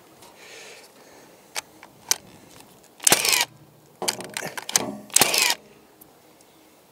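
Cordless drill run in three short bursts about a second apart, driving screws into the verandah beam; each burst winds down in pitch as the trigger is let go. A couple of light clicks come before the first burst.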